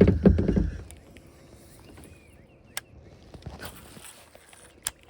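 Knocks and bumps on a kayak: a cluster of low thumps in the first second, then quiet with two sharp clicks, one near the middle and one near the end.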